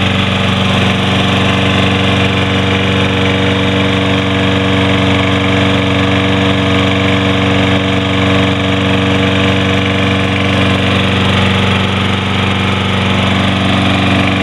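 Toro Recycler mower's 190cc Briggs & Stratton single-cylinder engine running steadily, left running to burn off oil left from an overfill.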